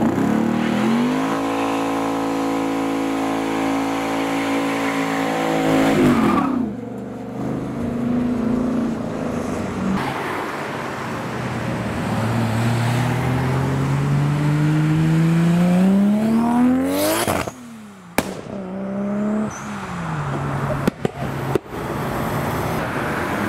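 Modified car engines. For about six seconds one is held at steady high revs. Then a car accelerates hard, its engine note climbing over several seconds before it stops suddenly.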